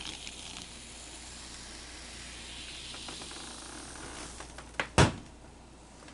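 Freshly poured blue raspberry Warheads soda fizzing in a shot glass: a steady soft hiss of bubbles. About five seconds in, a single sharp knock.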